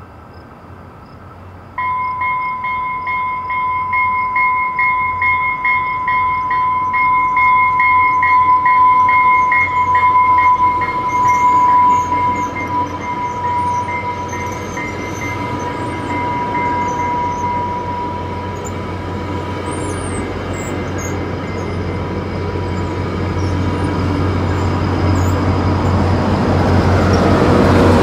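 New Mexico Rail Runner Express push-pull commuter train passing on its bilevel coaches: a train bell starts ringing about two seconds in, steady with a slight drop in pitch as the train goes by, over the rumble of the cars on the rails. The rumble grows louder near the end as the MP36PH diesel locomotive pushing at the rear comes past.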